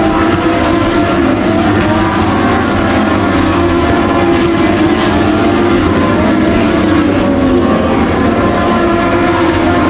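Racing motorcycle engines at a circuit, several running at once, their pitch rising and falling as the bikes rev and pass.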